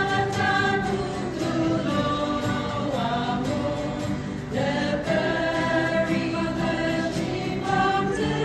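Choir singing in sustained, held notes that change pitch every second or so.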